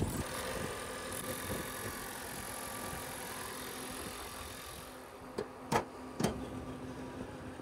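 Steady low background noise with a faint hum, and three short sharp clicks or taps a little past the middle.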